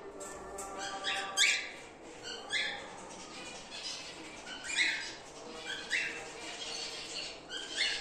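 Cockatiels calling: short, sharp chirps every second or so, the loudest about a second and a half in.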